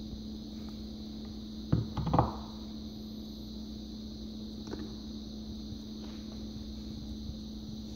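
Hard plastic knocks, a quick cluster of three or four, about two seconds in as the blender jar and lid are handled, with a faint click a few seconds later. A steady low electrical hum runs underneath; the blender motor is not running.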